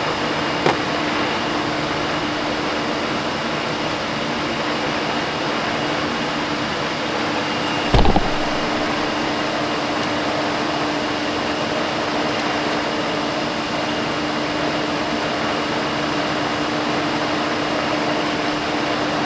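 Steady mechanical whir with a constant low hum, like a fan motor running. A single thump about eight seconds in, and a smaller knock near the start.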